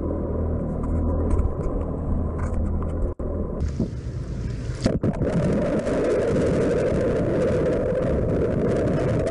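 Boat motor running with water rushing past the hull and wind on the microphone. About five seconds in, the sound switches abruptly to a dense, steady rushing, as from a camera held underwater while the boat moves.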